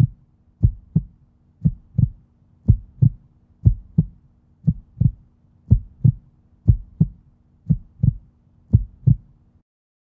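Heartbeat sound effect: a double low thump, lub-dub, about once a second, over a faint steady hum. It stops shortly before the end.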